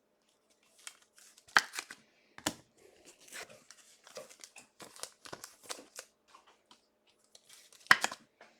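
Trading cards and their plastic packaging being handled: irregular short rustles, crinkles and scrapes, with one sharper crackle about a second and a half in and a louder cluster near the end.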